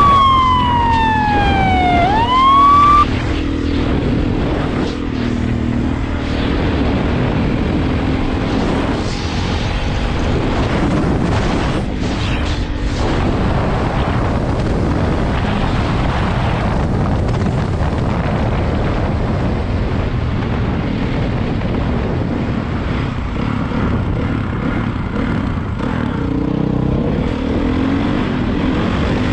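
A siren wails, falling then rising in pitch, and cuts off about three seconds in. Then a dirt bike engine runs under heavy wind noise on a helmet-mounted camera while riding, revving up near the end.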